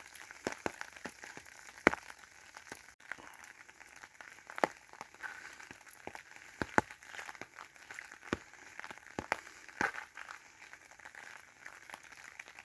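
Light rain with scattered drops tapping on an umbrella: irregular sharp taps, a few much louder than the rest, over a faint steady hiss.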